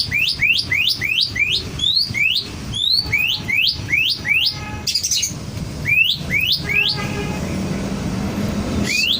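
Oriental magpie-robin (kacer) repeating a short rising whistled call, about three notes a second, over and over, which the title calls a strange sound. It breaks off for a moment and resumes briefly, and a steady low rumble comes up in the last couple of seconds.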